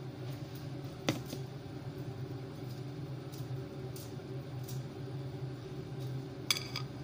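Steady low mechanical hum of a kitchen appliance or fan, with a single sharp knock about a second in and a short clatter of clinks near the end.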